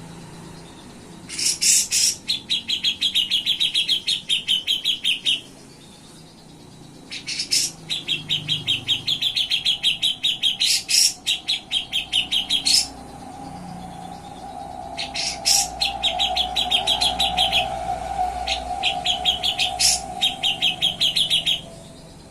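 Grey-cheeked bulbul (cucak jenggot) singing in three bursts, each opening with a few sharp notes that run into a fast, even trill. A faint steady hum sits underneath during the last bout.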